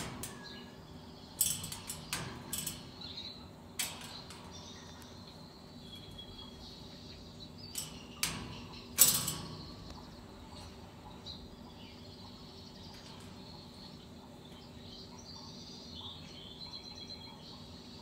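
Scattered clicks and clanks of a cockatoo climbing and hanging on the metal bars of its cage, the loudest about nine seconds in. Faint bird chirps and a low steady hum are heard behind.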